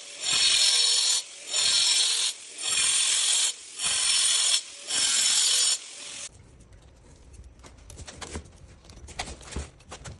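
Makita angle grinder cutting slots into a concrete screed in about five short passes of a second or so each, running at full speed with short breaks in between, then stopping about six seconds in. After that there are only scattered light clicks and taps as metal repair staples are handled and laid into the slots.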